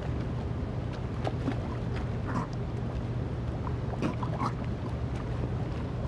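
Water splashing and slapping as cownose rays churn the surface of a shallow tank around a hand, with scattered sharper splashes. A steady low hum runs underneath.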